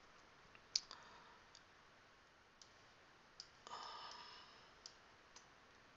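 Faint computer mouse clicks: about six separate clicks spread over a few seconds, the loudest about a second in, with a brief soft rustle around four seconds in.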